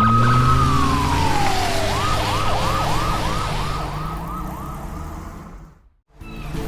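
Police siren holding one high tone, sliding down, then switching to a fast warble of about five cycles a second that fades away, over a low vehicle engine rumble. The sound drops out about six seconds in.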